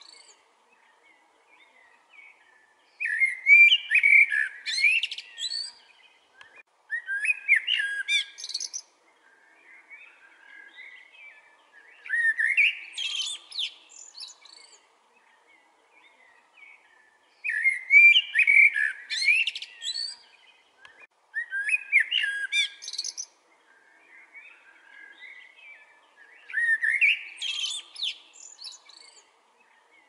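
Male common blackbird singing: six fluting song phrases of two to three seconds each, rising into higher notes, separated by short pauses.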